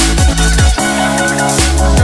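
Electronic dance music with a heavy bass line and kick drums. The deep bass drops out for about a second midway, leaving sustained synth chords, then comes back.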